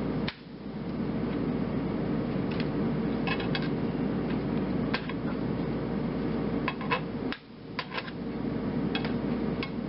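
Plastic slotted spatula stirring cubed Spam in a nonstick skillet, with occasional sharp taps and scrapes of the spatula against the pan over a steady hiss.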